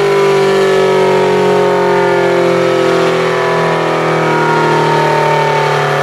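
Electromechanical outdoor warning sirens sounding a loud, steady wail whose pitch slowly falls as the rotor winds down, over a low motor hum. Near the end a higher tone starts to rise again as one siren spins up.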